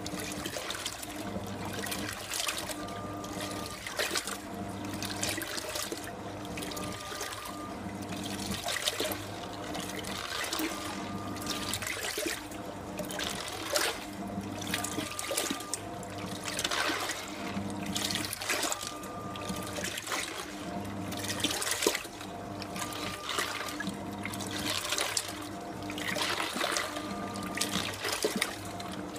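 1989 SANYO coin-operated compact washing machine agitating its rinse water. The water splashes and churns, while the motor hums in pulses that come back about every four seconds as the agitator drives one way and then the other.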